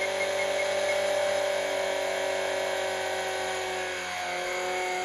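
Electric 450-size RC helicopter (Rotorscale AS-350) running at head speed: a steady whine of its electric motor, gears and rotor. About four seconds in the pitch dips briefly and settles again as it lifts off the pad.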